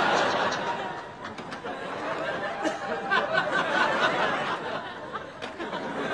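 Audience laughing and chattering, many voices at once.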